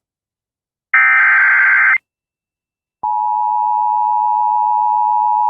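Emergency Alert System tones: a harsh one-second SAME digital header burst about a second in, a second of silence, then the steady two-tone EAS attention signal (853 and 960 Hz together) coming on about three seconds in and holding.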